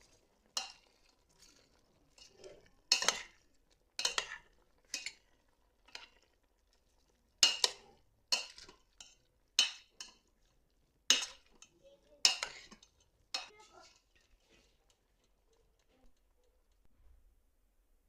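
Dishes and metal cutlery clinking and scraping: a run of irregular sharp clinks over about fourteen seconds, then it goes quiet.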